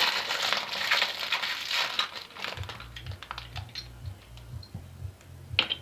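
Thin plastic packaging bag crinkling and rustling as it is handled, dense for the first couple of seconds, then thinning to scattered small clicks and rustles, with one sharper rustle near the end.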